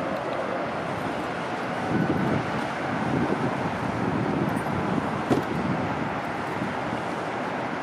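Distant roar of a British Airways Boeing 787-8's Rolls-Royce Trent 1000 jet engines on its takeoff roll, mixed with wind buffeting the microphone in gusts; a brief knock about five seconds in.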